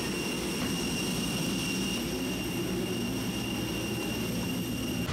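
Steady low rumble with an even, high-pitched whine, typical of a jet airliner's engines running close by on the airport apron.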